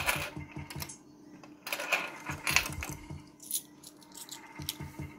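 Video slot machine's electronic spin sounds: a fast, even ticking as the reels turn, with a few short, bright jingling bursts.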